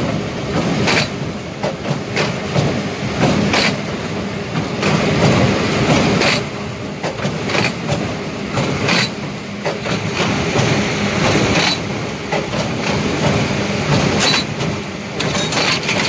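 John Deere 1433 four-string square baler running, heard close up at its knotters: a steady mechanical clatter with a heavier knock a little over once a second as the plunger packs hay.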